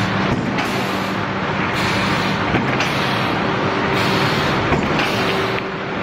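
Steady machinery noise from a plywood hot press line: a dense, loud hiss with a low steady hum underneath.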